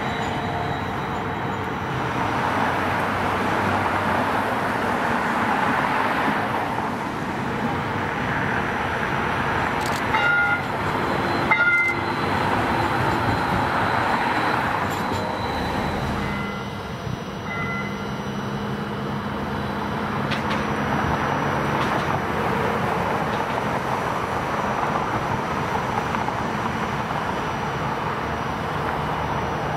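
Road traffic on a multi-lane avenue, with cars and a Q-Line streetcar passing close by as a steady rush of tyres and motors. Short horn toots sound about ten and twelve seconds in, and two brief high pips come around seventeen seconds.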